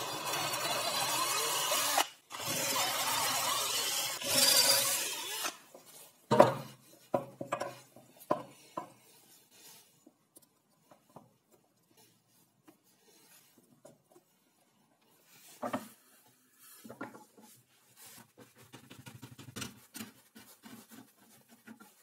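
Power drill boring into a laminated plywood star knob in two runs of about two seconds each, the bit going in to a depth marked with tape. After that come several sharp knocks and lighter clicks of wooden parts being handled.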